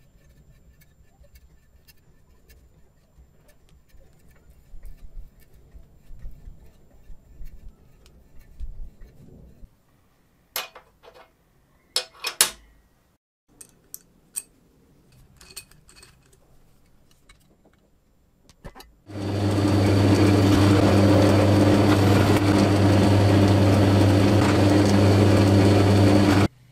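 Power drill running steadily as it bores through an aluminium chassis plate, a loud, even motor whine for about seven seconds that stops abruptly. Before it, quiet handling of parts and a few sharp metal clinks.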